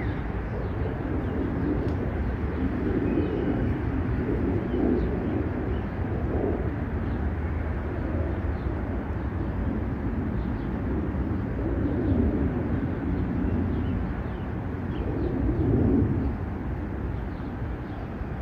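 Outdoor ambience: a steady low rumble with birds calling, a low call swelling up every few seconds and faint chirps above it.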